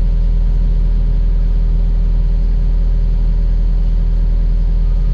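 Cat 255 skid steer's diesel engine running steadily, a constant low drone.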